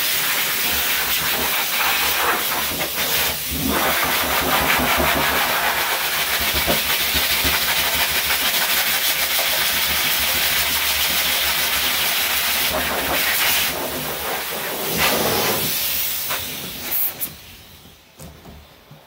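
High-velocity dog grooming dryer blasting air through its hose onto a damp coat: a loud, steady rushing hiss that dips briefly a couple of times and shuts off near the end.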